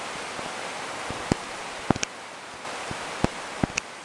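Steady rush of white water in a mountain stream, with about six sharp clicks over the middle and later part.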